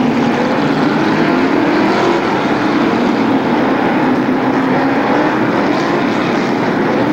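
A pack of late-model stock cars racing at speed, several V8 engines running together with overlapping pitches that rise and fall as the cars pass.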